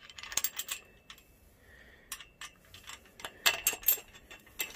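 Light metallic clicks and clinks as a metal fitting is handled and slid onto a powder-coated steel hammock-stand tube, coming in several short clusters, the loudest a little after three seconds in.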